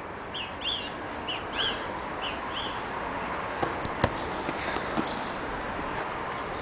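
A small bird calling: about six short, high chirps over the first two and a half seconds. Then several sharp knocks follow, the loudest about four seconds in.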